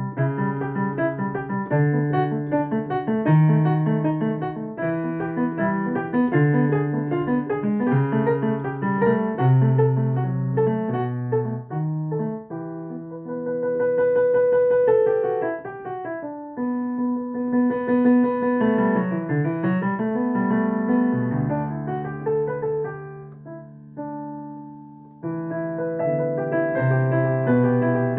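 Improvised solo keyboard music with a piano sound. Repeated chords in a steady pulse give way to held notes whose pitch slides down and back up in the middle, then a softer passage, and full chords return near the end.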